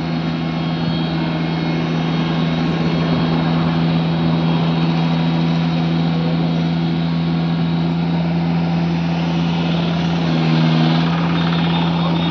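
Tractor's diesel engine running steadily in thick paddy mud, a continuous low hum that swells briefly about ten seconds in.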